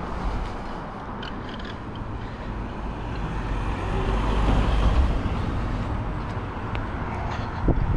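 Road and traffic noise heard from a moving bicycle: a steady rush of wind and road noise, swelling as a vehicle goes by about halfway through, with a thump near the end.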